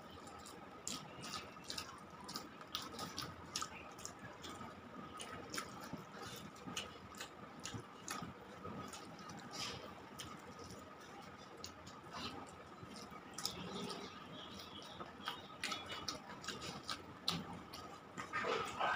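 Close-up hand-eating sounds: wet chewing and mouth clicks, with fingers gathering and mixing rice on a steel plate, as many small irregular clicks.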